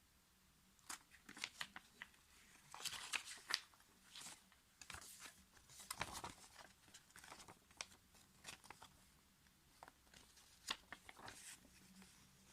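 Faint handling noises: scattered clicks and taps mixed with short crinkling rustles, like a phone and plastic or paper being handled by hand.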